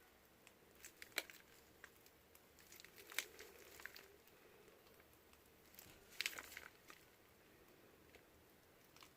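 Faint crinkling of a plastic piping bag being squeezed as soap frosting is piped. Short sharp crinkles come about a second in, around three seconds, and in a small cluster around six seconds.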